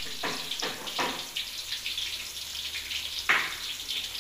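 Hot oil sizzling and crackling as batter-coated slices deep-fry in a black wok, with a louder pop about three seconds in.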